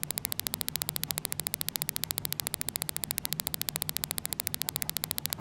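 Electrical static buzz in the recording: a rapid, even ticking of over a dozen clicks a second over a low mains-type hum.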